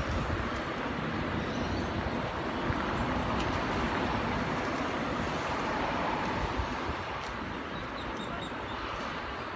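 Endeavour diesel railcar set pulling away, its engine and rolling noise steadily fading as it recedes.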